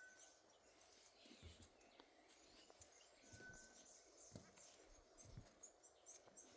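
Faint, distant calls of several wild birds: a clear whistled note held about half a second, heard at the start and again about three and a half seconds in, over a scatter of short high chirps. A few soft low thumps come through as well.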